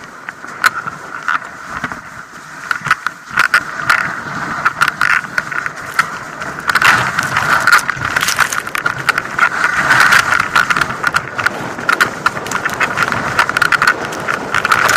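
Skis running over snow: a steady hiss and scrape with frequent sharp clicks and knocks, louder from about seven seconds in.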